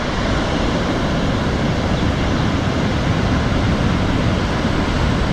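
Water pouring from the open spillway gates of a concrete dam into the river below: a loud, steady rushing roar.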